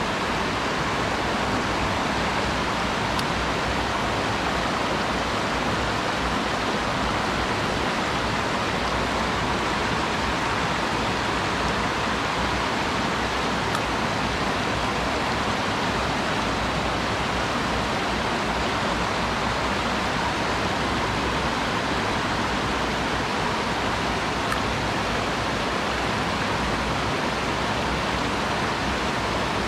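Steady rush of water from a small high-mountain stream, an even noise that does not let up.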